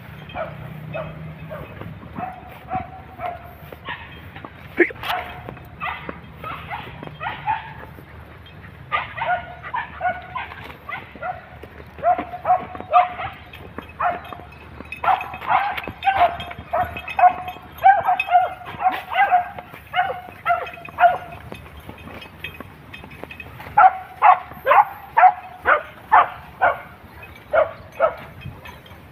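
Hunting dogs barking on a chase, in runs of short, high barks several a second, thickest through the middle and again near the end.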